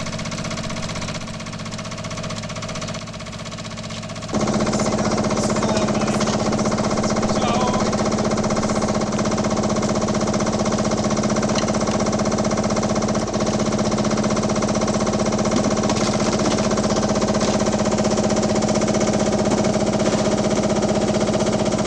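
Small red compact tractor's engine idling steadily with an even knocking hum, stepping up louder about four seconds in and then holding steady.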